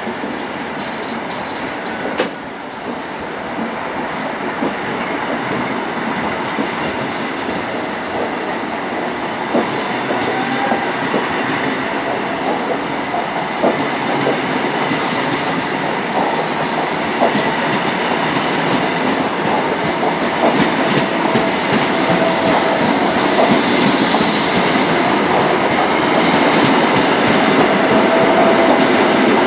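A loco-hauled passenger train departing, its coaches rolling past at close range with scattered clicks from the wheels over the track. It grows steadily louder as the train gathers speed.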